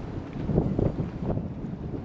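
Wind buffeting the microphone in irregular gusts: a low, rumbling noise that swells and drops.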